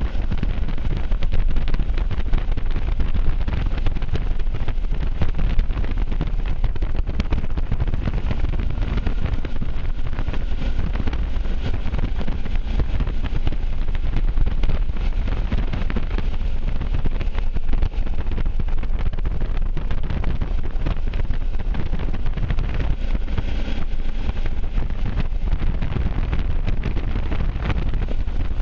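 Steady wind rush on the microphone of a camera riding on a moving motorcycle, a dense low rumble, with the motorcycle's engine and road noise beneath it.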